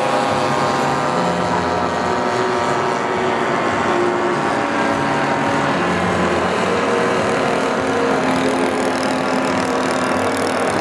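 Several radio-controlled model aeroplanes flying at once, their small propeller engines running together as a steady mix of overlapping tones at several pitches that shift slowly as the planes pass.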